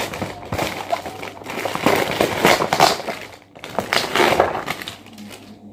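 Plastic mailer bag crinkling and a cardboard box rustling and scraping as the box is pulled out of the bag, in several irregular bursts, loudest in the middle and again about four seconds in.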